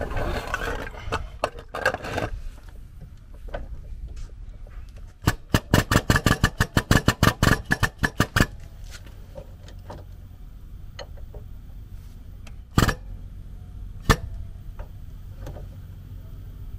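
Foot-operated air-hydraulic pump running in a rapid series of sharp pulses, about six a second for some three seconds, driving the hydraulic cylinder of a ball-joint press. Handling noise comes first, and two single metal knocks from the press frame follow later.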